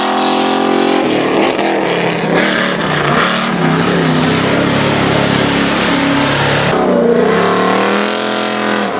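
Race pickup's engine running hard on a dirt hill-climb course. Its pitch drops about a second in, wanders through the middle, and climbs again near the end, over a steady hiss of tyre and gravel noise.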